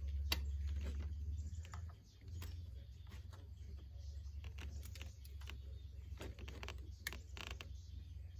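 Scattered light clicks and taps from a tape measure and hands working against a PVC soffit, over a low steady rumble that drops about two seconds in.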